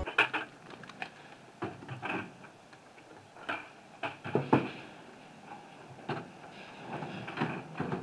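Empty plastic buckets knocking and clunking as they are lifted over the side of a pickup truck and set into its bed. The knocks are irregular, with the loudest about four and a half seconds in.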